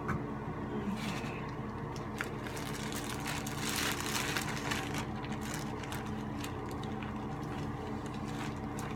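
Scratching and rustling close to the microphone over a steady electrical hum, with a louder scrubbing stretch about four seconds in.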